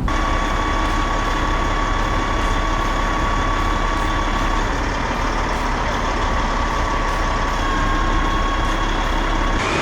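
Heavy engine running steadily under a broad noise, with a steady high whine over it.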